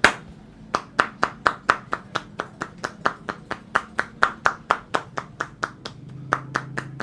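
A barber's hands clapping and slapping during a head massage, a fast even rhythm of about four sharp claps a second. The claps pause a little before six seconds, and a few more follow.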